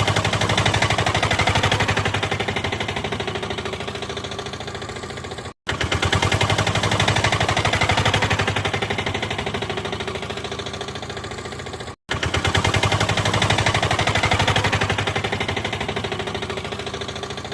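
Car engine running with a rapid, even beat of firing pulses, as a looped sound effect: passes of about six seconds, each starting loud and fading a little, broken twice by a brief cut to silence.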